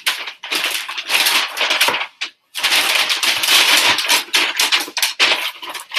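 A shipping mailer bag crinkling and rustling as a folded purse is pushed into it. The sound comes in two long spells with a short break about two seconds in.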